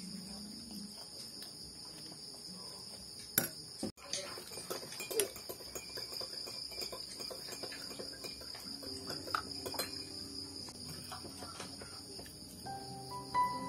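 Insects trilling steadily in the background, with a metal spoon clinking and scraping against a glass bowl and a plate as thick guava jam is scooped and spread.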